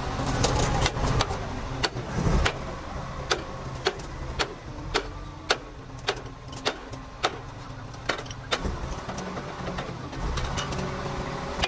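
A series of sharp knocks, about one or two a second and uneven in spacing, over a low steady rumble.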